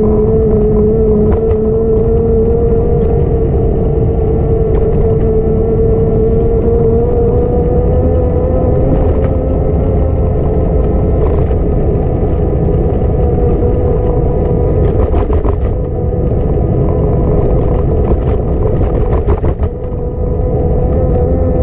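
Riding noise on a bicycle path: heavy wind rumble on the camera microphone with a steady whine that creeps slightly higher in pitch. Scattered clicks and rattles come in the second half.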